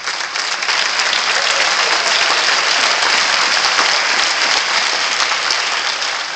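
Audience applauding: dense clapping from many people that builds over the first second, holds, and tapers off near the end.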